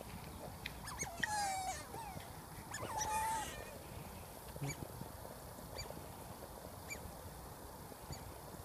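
Otters calling: two short calls, each about half a second long and steady in pitch, about a second and a half apart, then a few faint clicks.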